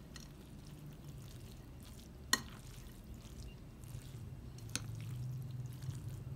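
A hand squeezing and mixing drained rice into a wet saffron, egg and yogurt mixture in a bowl: soft, irregular squelching. A sharp click comes a little over two seconds in and a fainter one near five seconds, over a low steady hum.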